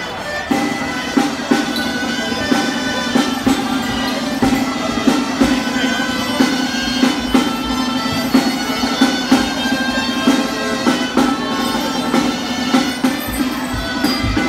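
Traditional street music of pipes and drum playing a dance tune: a wind melody over a steady low note, with regular drum beats.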